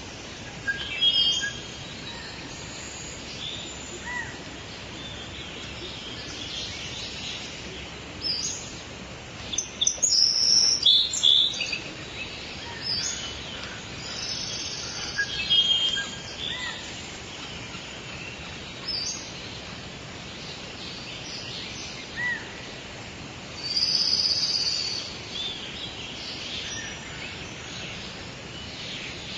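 Wild birds chirping and calling in scattered short phrases over a steady background hiss. The calls come thickest about ten seconds in and again near twenty-four seconds.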